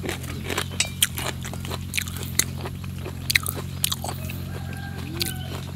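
Close-up chewing: a man working a full mouthful with irregular wet, sticky clicks and smacks, over a steady low hum.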